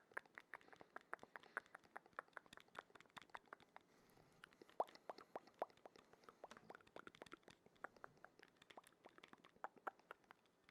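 Close-miked wet mouth sounds: quick, irregular clicks, pops and smacks, several a second, soft overall with a few sharper pops.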